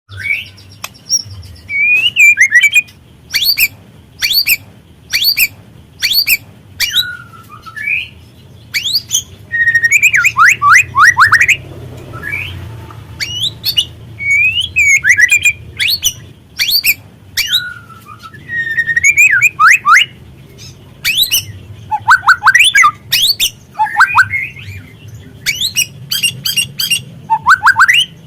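Juvenile white-rumped shama calling in short bouts about a second apart: sharp clicking chips and rough chatter mixed with quick whistled notes that slide down in pitch.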